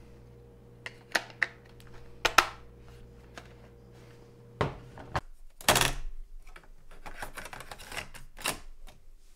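Plastic clicks, knocks and battery clatter from handling an Onn ONA13AV504 portable cassette recorder: C-size batteries seated in its battery compartment, the battery cover snapped shut and the unit turned over with a couple of louder knocks around five to six seconds in, then small clicks as a cassette is pushed into the tape door.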